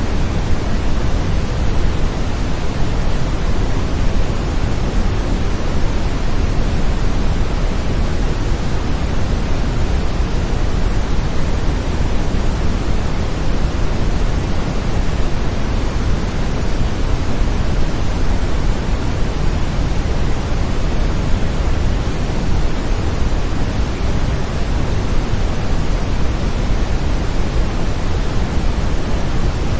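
Steady brown noise: a deep, even rushing hiss, heaviest in the low end, with no change or breaks.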